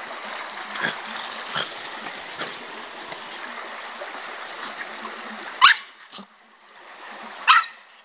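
Shallow stream rushing over stones, with a few light splashes of a dog wading through it. Then a dog barks sharply twice near the end.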